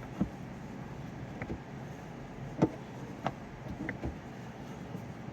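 A handful of short clicks and creaks from an M16 thread tap being turned by hand in cast iron, the loudest about halfway through, over a steady background hum.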